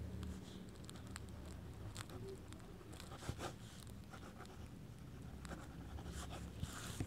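A pen scratching across paper on a clipboard in quick strokes, writing a cursive signature. It is faint, with a few sharper ticks as strokes start and end, over a low steady hum.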